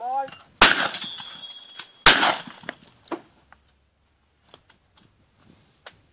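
Two shotgun shots about a second and a half apart, each a sharp crack with a short echoing tail, fired at clay targets during a flush.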